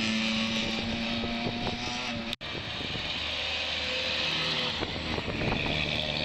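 Rally cars driving on a wet road, engines running over a steady hiss. The first engine holds a steady note. About two seconds in the sound cuts, and a Mitsubishi Lancer Evolution X rally car's engine follows.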